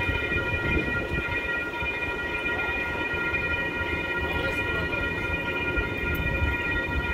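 Railroad crossing warning bell ringing continuously, a steady high ringing tone over a low rumble.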